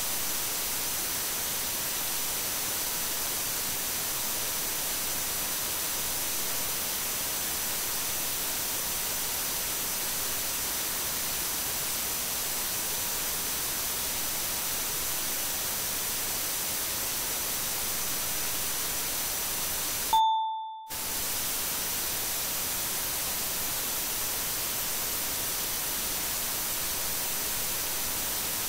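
Mic preamp self-noise from Behringer X32 and WING inputs, then the S32 stage box, boosted 80 dB: a steady hiss with a faint high-pitched whine running through it. About 20 seconds in, the hiss stops briefly for a short tone as the comparison pair changes.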